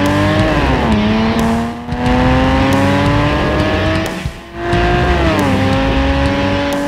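Aston Martin V8 Vantage's V8 through a Fi catless, X-pipe, valved exhaust with the valves open, accelerating under load. The engine pitch climbs steadily and drops twice, about a second in and about five seconds in, as it shifts up.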